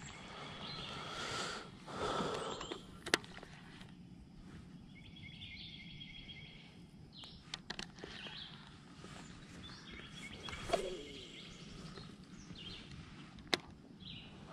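Spincast fishing reel being cranked in short spells, a faint high whirring that stops and starts several times, with a few sharp clicks in between.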